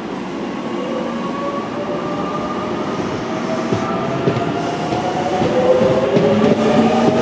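Tobu 20070-series electric commuter train pulling away from a station: its traction motors whine in several tones that rise steadily in pitch as it accelerates, over the rumble of wheels on the rails, growing louder as the cars pass.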